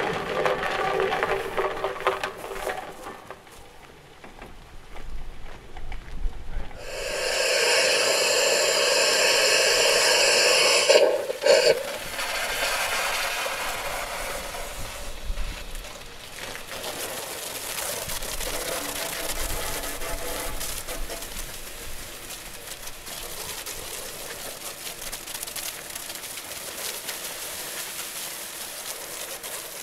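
A hose spray lance hissing as it washes down a traction engine's rear wheel. The hiss is loud and harsh for a few seconds, stops abruptly with a knock, then carries on more softly and evenly. At the start a pitched sound fades away.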